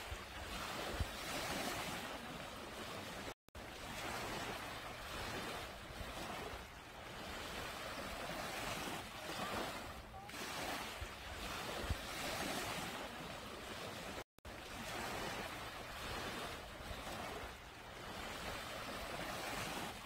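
Small sea waves washing up onto a sandy beach, surf hissing in and draining back, swelling and easing every couple of seconds. The sound cuts out completely for an instant twice, about three and a half seconds in and again near fourteen seconds.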